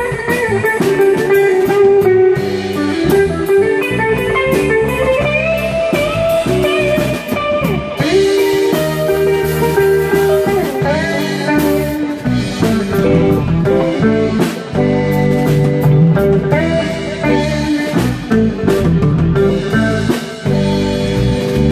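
Live band playing a blues-rock tune: electric guitars over a drum kit, with a lead guitar playing sustained, gliding bent notes.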